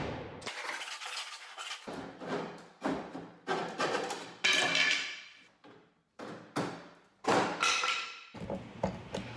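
A series of irregular sharp knocks and clanks from hand tools, about ten in all, each ringing out briefly.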